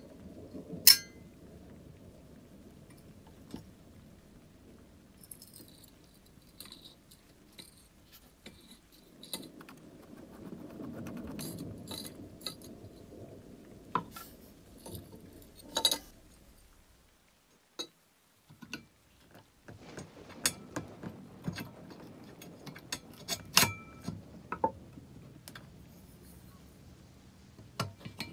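Hand tools clinking and tapping against the metal parts of an antique brass blowtorch being taken apart. Scattered sharp clicks over a low handling rumble, with a short quiet gap past the middle.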